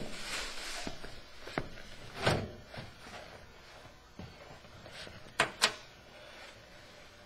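Handling noise from cleaning out a racing fuel cell: rustling at first, then a few scattered thumps, and two sharp knocks in quick succession about five and a half seconds in.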